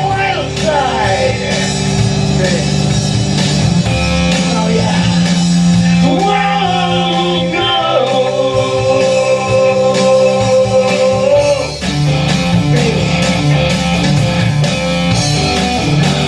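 Glam metal rock music with no sung words: a lead line gliding up and down in pitch over held chords, turning to a more rhythmic, chugging pattern about twelve seconds in.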